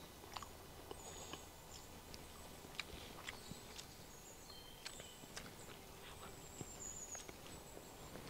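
Faint outdoor ambience: small birds chirping in short high calls, with scattered soft clicks and ticks.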